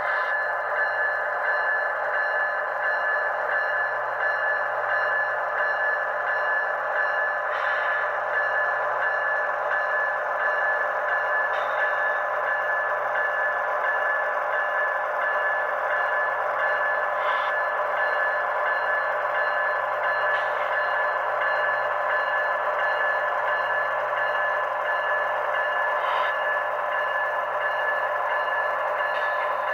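HO-scale ET44AC model diesel locomotives running past on track: a steady, tinny drone holding several tones, with a faint click every few seconds.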